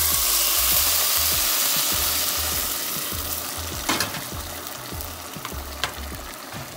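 Boiling water poured onto toasted rice, corn and onion in a hot pot, with a loud sizzling hiss that slowly dies down as the water settles into a boil. A couple of light ticks sound about four and six seconds in.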